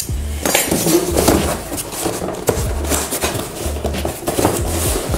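Small cardboard box being handled and opened: scraping and rustling cardboard with a run of light knocks and clatter.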